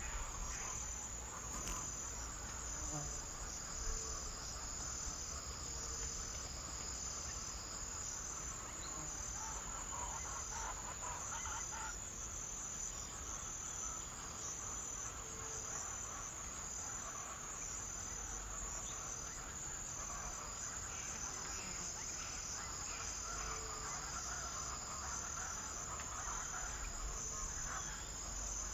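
A chorus of insects, with a steady, high, evenly pulsing trill over fainter scattered calls.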